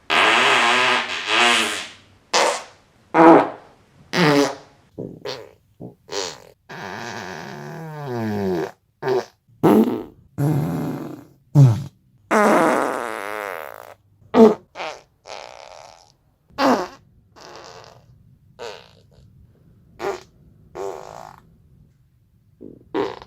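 A string of about twenty human farts with short gaps between them. Some are long and drawn out with a wavering pitch, others are short pops, and the ones near the end are fainter and shorter.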